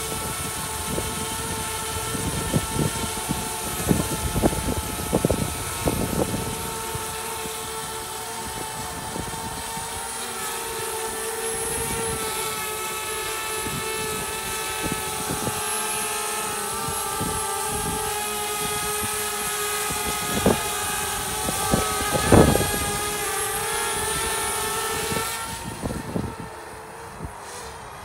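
DJI Spark quadcopter's propellers whining steadily as it hovers, with gusts of wind buffeting the microphone in low thumps. Near the end the whine fades as the drone flies away.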